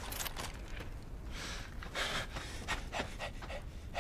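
A man panting hard: a run of quick, rough breaths.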